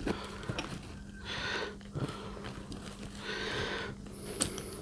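A man breathing audibly through his nose, with three breaths about two seconds apart. Short clicks and rustles of webbing and strap clips come in between.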